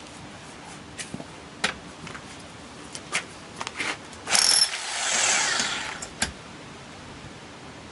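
Scattered clicks and knocks from handling a rotary hammer drill with its long masonry bit sitting in a hole in a concrete block, the drill not hammering. About four seconds in comes a short loud scrape, then a hissing swell that fades away over about a second and a half.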